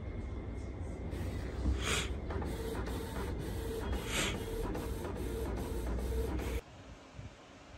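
Desktop printer printing a page: a steady mechanical whir with a pulsing tone and two short rushing sweeps of the print head, about two seconds apart. It cuts off suddenly near the end, leaving quiet room tone.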